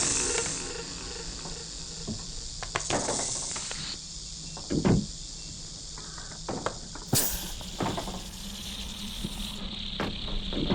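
Horror sound-effects soundscape: a steady high hiss with scattered sharp knocks and clicks, a deep thud about five seconds in, and a sudden burst of brighter hiss a couple of seconds later.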